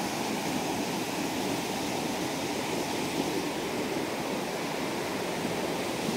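Rushing water of a waterfall and cascading stream tumbling over rocks: a steady, unbroken rush, heaviest in the low and middle pitches.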